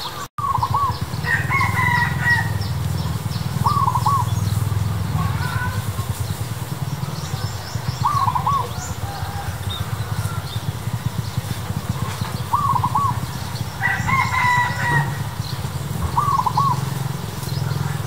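A rooster crowing twice, shortly after the start and again about three-quarters of the way through. Between the crows come short, double-noted bird calls every few seconds, over a steady low rumble.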